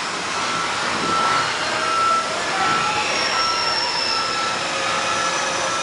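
Electronic beeper sounding a steady series of short, high beeps, about one to two a second, over a constant background of machinery noise.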